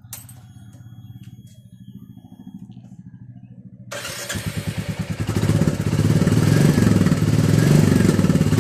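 Royal Enfield Classic 350's single-cylinder engine starting about four seconds in, then running with a loud, even, rhythmic thump. Before it starts there is only a faint low rumble.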